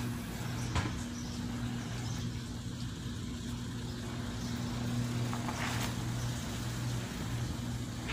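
A machine running nearby with a steady low hum. There is a sharp click a little under a second in and a short burst of noise about six seconds in.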